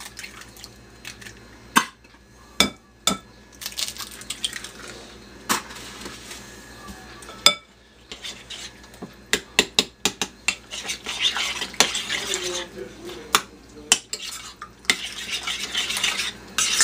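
Metal spoon clinking and scraping against a glass mixing bowl as the tuna burger mixture is stirred together with eggs. Scattered sharp clinks in the first half, coming quickly in the second half, with two stretches of stirring noise.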